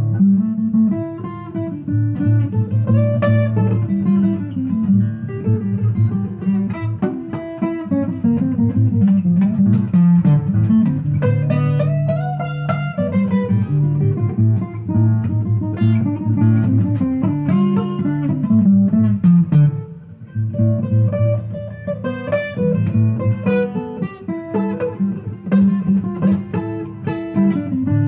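Solo acoustic guitar playing an instrumental break between verses, picked and strummed chords with melody notes, dipping briefly about twenty seconds in.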